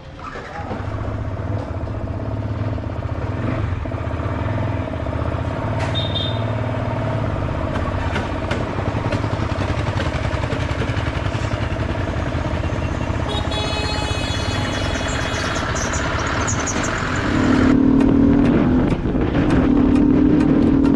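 Motorcycle engine running steadily, growing louder about seventeen seconds in.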